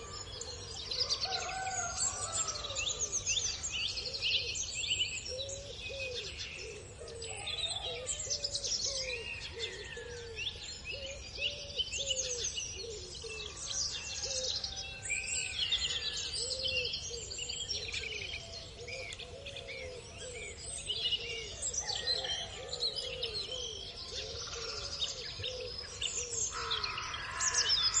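A busy chorus of small birds chirping and twittering, over a run of short, low calls repeating about once or twice a second.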